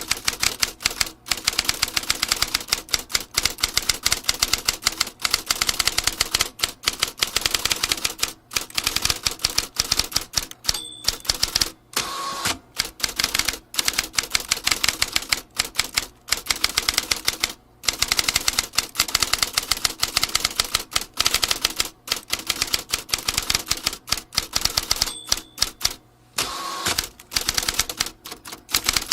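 Vintage manual typewriter being typed on: a fast, uneven run of key strikes with a few brief pauses. A short bell-like ring sounds about eleven seconds in and again near the end, the typewriter's end-of-line bell.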